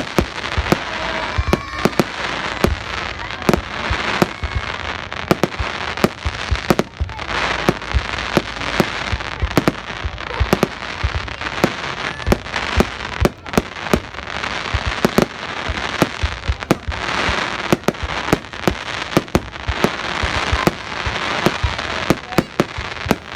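Aerial fireworks display: a rapid, irregular series of sharp bangs from shells bursting, often several a second, over a continuous crackling hiss.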